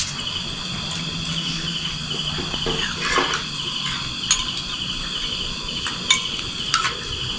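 Crickets chirping in a steady, rapid pulsing trill, with a few light clinks of spoons on plates.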